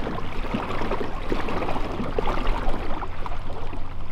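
Water lapping and trickling against the hull of a moving kayak, many small irregular splashes, over a steady low rumble.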